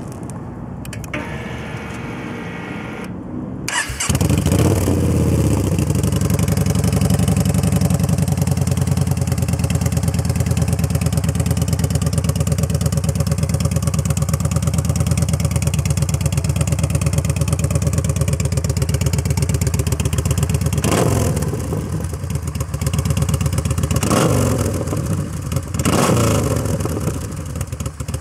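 Yamaha Bolt's 942 cc V-twin turned over on the starter for about three seconds, then catching and idling loudly through an Extremeblaster XB06 shorty disc-type slip-on muffler with ten plates fitted. Near the end the throttle is blipped several times in short rises of revs.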